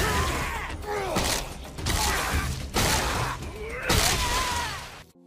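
Anime gore sound effects: a mallet hammering a wooden stake into a body, about five wet blows roughly a second apart, each followed by a shrill scream from the vampire being staked. The sound cuts off suddenly just before the end.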